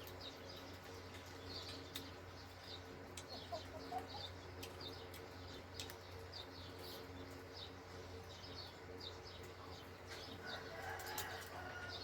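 Small birds chirping repeatedly in short calls, about two a second, over a steady low hum, with a few faint clicks.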